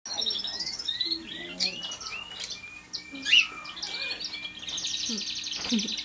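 Many caged pet birds in a bird shop calling together: a string of short rising chirps, a louder call a little past the middle, then a fast, continuous chattering trill near the end.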